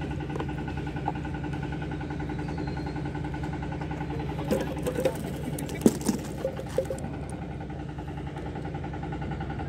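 An engine runs steadily throughout with an even, unchanging drone. Between about four and seven seconds in come a handful of sharp taps and knocks as the freshly caught scad is dropped into a wooden box.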